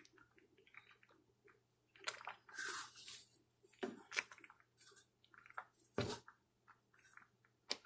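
Thick cornmeal porridge squelching faintly as a spoon stirs it in a saucepan, in short irregular wet sounds, with a sharper knock of the spoon about six seconds in.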